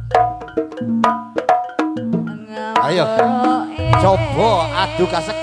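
Live jaranan gamelan music: hand drums and struck metal keyed instruments in a brisk rhythm, with a deep humming stroke returning about four seconds in and a wavering, warbling melody line entering halfway through.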